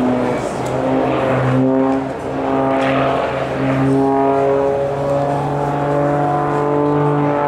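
Single-engine aerobatic propeller plane's piston engine and propeller droning overhead. The pitch steps up and down every second or so as the plane climbs and tumbles.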